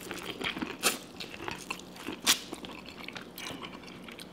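A person biting into and chewing a sauce-coated corn on the cob. It comes as scattered short mouth clicks, the loudest about one second in and again just past two seconds.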